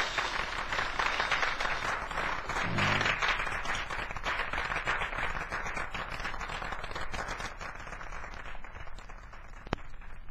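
Audience applause at the end of a live jazz set, slowly dying away. A single sharp click comes near the end.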